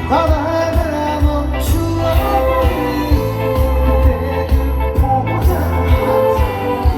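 Live band music with a steady, pulsing bass beat and sustained instrument lines, in a trot style.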